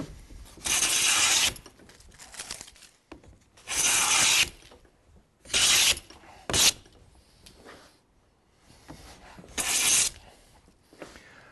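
No. 4 metal smoothing plane taking about five short strokes along a wooden moulding blank, each stroke a brief hissing shave with pauses between. These are smoothing passes over a surface left rough by a coarse-set plane.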